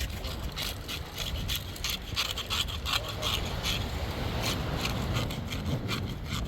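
Rapid, repeated rough scraping strokes, several a second, over a steady low background rumble.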